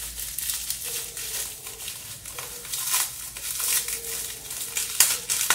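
Packaging crinkling and crackling in irregular handfuls as small packets are handled and opened by hand, with sharper crackles about five seconds in.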